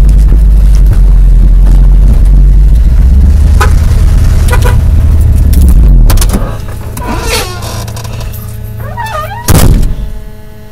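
Pickup truck driving on a rough dirt road, heard inside the cab: a loud, deep rumble with scattered knocks and rattles. About six seconds in it drops to a quieter steady hum with faint squeaks, and there is one loud thump near the end.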